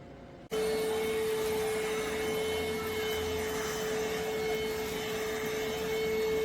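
iwoly C150 cordless stick vacuum running at a steady speed, a constant motor whine with a single strong tone over airflow noise. It starts suddenly about half a second in.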